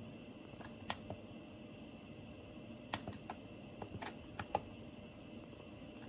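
Push buttons on a Daikin wired remote controller clicking as they are pressed: a few presses about a second in, then a quicker run of about seven near the middle, the last the loudest, over a steady low background hum.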